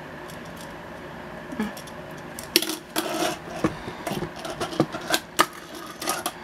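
Fingerboard being pushed and flicked across a tabletop: its small wheels roll and scrape, and from about two and a half seconds in the deck gives a run of sharp, irregular clacks and taps against the surface.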